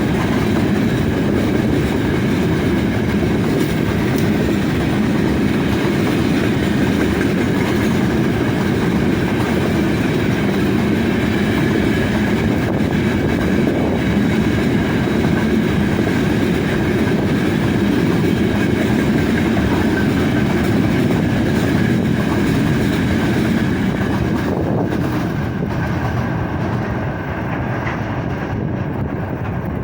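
Long freight train rolling steadily past, its wagon wheels running over the rails in a continuous heavy rumble. The sound fades near the end as the train draws away.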